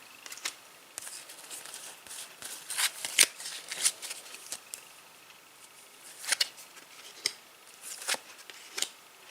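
Adrenalyn XL trading cards being handled and slid past one another as they are flicked through, a soft rustle broken by irregular sharp card snaps and slides.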